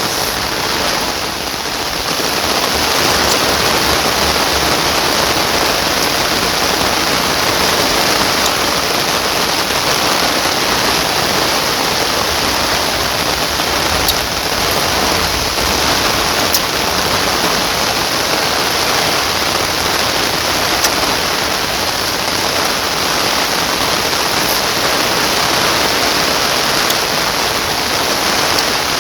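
Heavy rain pouring steadily, a dense even hiss that starts suddenly, with a few faint drop ticks.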